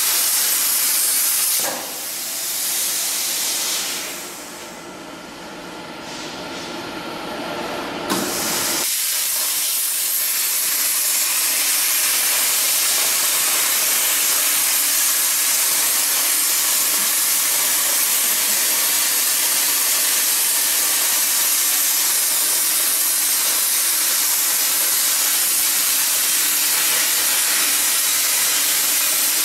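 CNC plasma cutting torch on a light aluminium gantry cutting machine, a steady hiss as the arc cuts through metal plate. About two seconds in the hiss drops away for several seconds, then comes back with a sharp click about eight seconds in.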